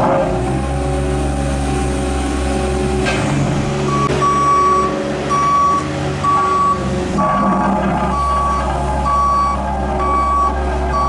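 Diesel engine of a Hamm tandem asphalt roller running steadily, with a reversing alarm beeping about one and a half times a second from about four seconds in.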